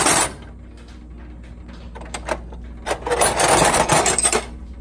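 Metal wrenches and sockets clinking and clattering in a tool chest drawer as a hand rummages through them: a few clicks about two seconds in, then a busy rattle lasting about a second and a half.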